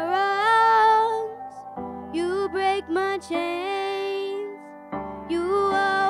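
A girl singing solo into a handheld microphone over soft, sustained instrumental accompaniment, her voice gliding between notes, with short pauses between phrases.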